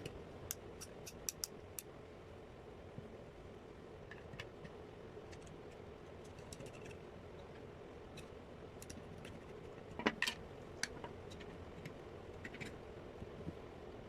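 Light clicks and taps of small hard parts being handled while a hair clipper is worked on, a quick run of them near the start and the sharpest few about ten seconds in, over a faint steady hum.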